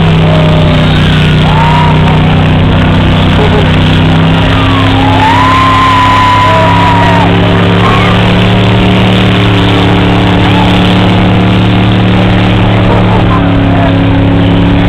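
Car engine held at high revs through a burnout, its pitch stepping up and down a couple of times. People in the crowd shout and whoop over it, once in a long rising-and-held cry a few seconds in.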